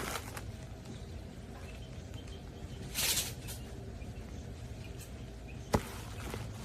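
Handling sounds over a low steady background hum: a brief rustle about three seconds in and a single sharp click near the end.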